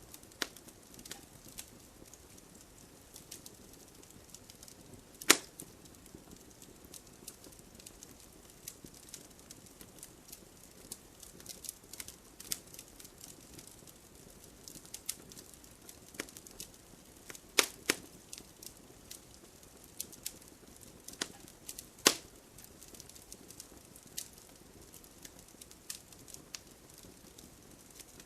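Wood fire crackling: a steady scatter of small crackles over a soft hiss, with three loud pops, about five seconds in, near eighteen seconds and at twenty-two seconds.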